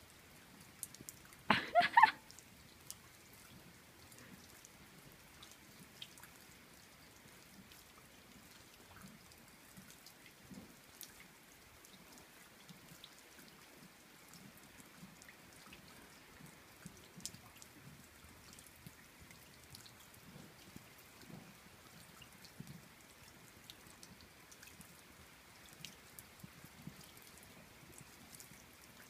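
Light rain, with scattered raindrops ticking and dripping close by. About two seconds in, a brief, loud, wavering call.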